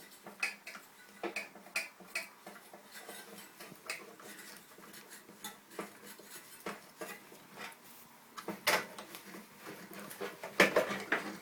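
Scattered small clicks and taps over faint rubbing as a cloth is worked around a microwave light bulb and its fitting, with sharper clicks about nine seconds in and near the end.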